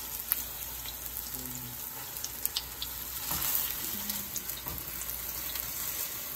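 Grated-potato pancake (gamjajeon) frying in oil in a non-stick pan: a steady, fairly quiet sizzle, with a couple of sharp clicks.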